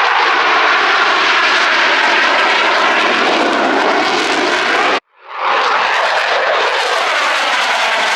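Loud roar of Blue Angels F/A-18 jets flying over, a steady rushing jet noise with slowly shifting tone. About five seconds in the sound cuts out abruptly and swells back.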